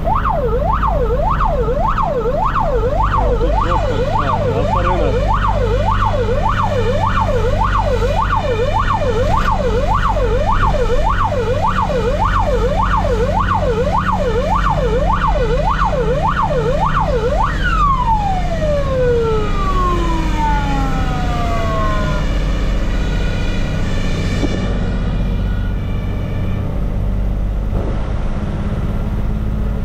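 Fire engine siren on a fast yelp, sweeping up and down about twice a second. About 17 seconds in it is switched off and slides down in pitch as it dies away. A vehicle engine runs low and steady underneath.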